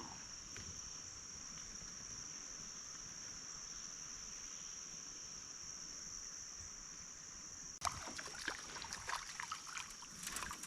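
Quiet outdoor ambience from a small fishing boat on a river: a steady high-pitched hiss with a faint trickle of water. From about eight seconds in comes a run of small knocks, clicks and splashes.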